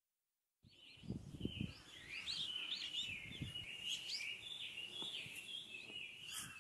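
Small birds chirping and singing in a quick run of rising and falling notes, over outdoor ambience with a few low rumbles. It starts about half a second in, after a moment of silence.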